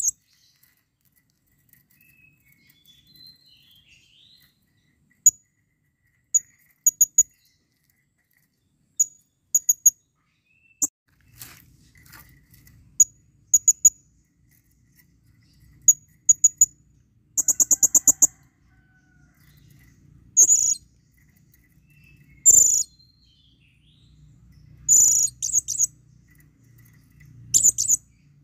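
Male blue-crowned hanging parrot (serindit) giving its breeding calls to a female: short, high-pitched chirps, singly or in quick twos and threes, with a fast run of about nine notes a little past the middle and louder calls toward the end.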